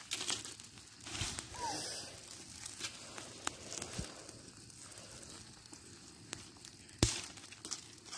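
Small campfire of twigs and brush crackling, with scattered sharp pops and snaps as the burning sticks are stirred; the loudest snap comes about seven seconds in.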